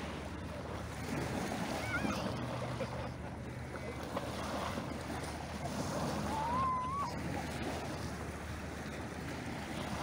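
Small waves washing onto a shingle beach, with wind on the microphone. A couple of short, faint calls come through about two seconds in and again past the middle.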